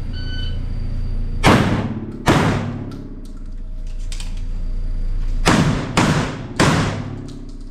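A shot timer's short start beep, then five gunshots ringing in an indoor range: two about a second apart, then three in quick succession near the end.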